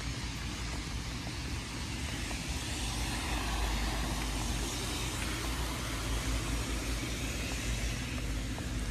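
A car passing on the wet road, its tyre hiss on the wet surface swelling to a peak about halfway through and then fading.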